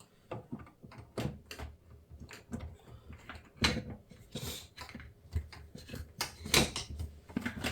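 Irregular small clicks, knocks and clatter of kitchen utensils and containers being handled while preparing dough.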